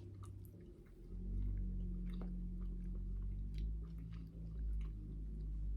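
A person chewing a bite of soft, crumbly sponge cake, with faint wet mouth clicks. About a second in, a low steady hum starts and runs under the chewing.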